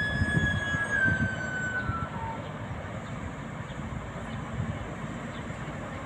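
Street traffic and construction machinery: a passing vehicle fades away over the first two seconds, with a high tone sliding down in pitch as it goes, leaving a steady rumble of traffic and excavator engines.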